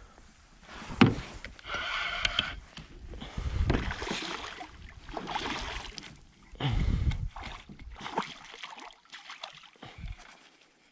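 Knocks, gear handling and water sloshing around a fishing kayak, in irregular surges, with one sharp knock about a second in that is the loudest sound.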